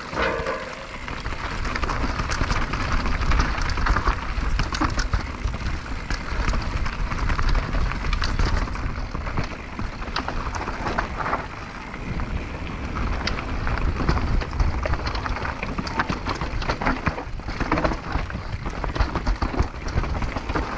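Downhill mountain bike rolling fast over a rocky, gravelly trail: tyres crunching over loose stones, with constant clicks and rattles from the bike over the bumps.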